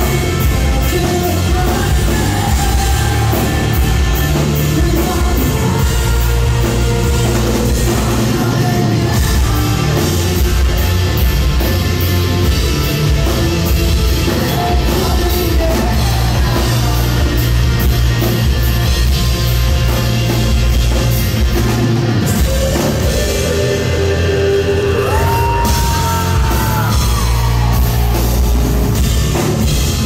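A live rock band playing loud and steady: distorted electric guitars, bass and drum kit, with the lead singer singing and yelling over them. Several seconds before the end a long note is held and bent.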